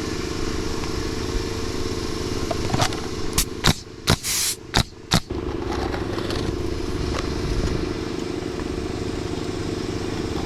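A quick run of about five sharp shots from a pneumatic roofing nailer, all within two seconds a few seconds in, one of them with a short hiss of air, over a steady low rumble.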